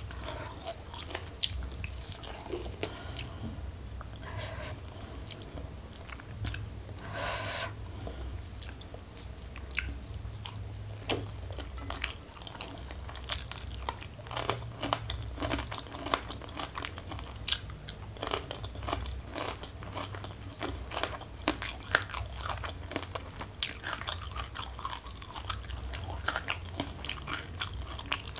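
Close-miked eating: a person chewing and crunching a hand-eaten meal of rice, salted fish and raw greens with sambal, with many short sharp mouth clicks throughout over a steady low hum.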